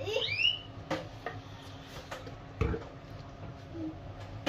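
Light clicks and a soft thump as a flip-top soy sauce bottle is handled and set down after pouring, over a steady low hum. A brief high rising squeak near the start is the loudest sound.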